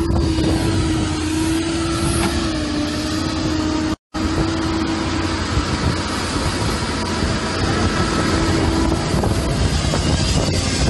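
An engine running steadily under a dense outdoor noise, with a low hum that wavers slightly in pitch. The sound cuts out for a moment about four seconds in.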